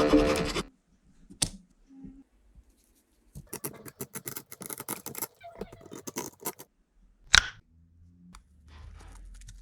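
Hand-work noises: a loud grinding-like noise that stops just after the start, then a quick run of sharp clicks and scrapes for about three seconds. A single loud click comes later, followed by a faint low hum.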